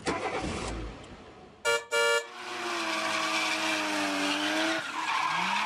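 Forge blower fan screeching: two short squeals about two seconds in, then a steady high squeal that sags slightly in pitch, with a brief rising squeal near the end. The owner traces the noise to a bent fan blade.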